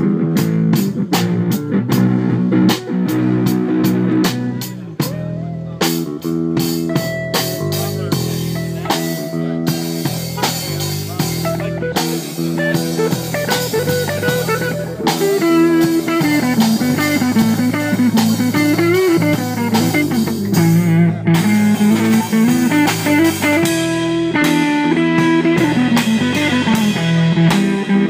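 Live blues band playing an instrumental break: a lead guitar line with bent notes over steady chords, bass and drum kit.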